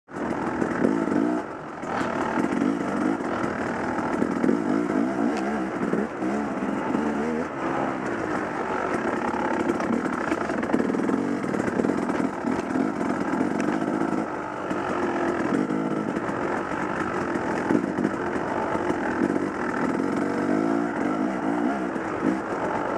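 Off-road motorcycle engine running and revving on a trail, its pitch rising and falling continually with the throttle.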